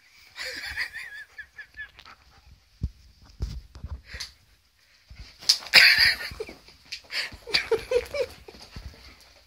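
Alaskan malamute vocalising while it leaps around, in wavering high calls and short yips, with its loudest vocal burst a little past the middle. A couple of dull thumps come about three seconds in.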